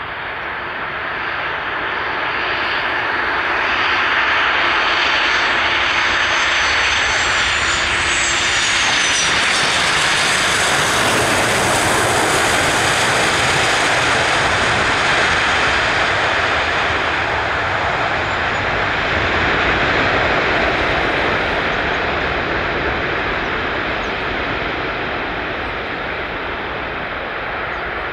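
Boeing 737-800's CFM56-7B jet engines landing and rolling past: a roar that builds over the first few seconds, with a high whine falling in pitch as the jet passes, then a steady roar as it rolls out down the runway.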